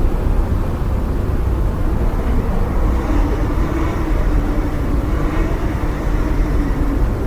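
Motorcycle engine running steadily with a low rumble, its pitch wavering slightly up and down.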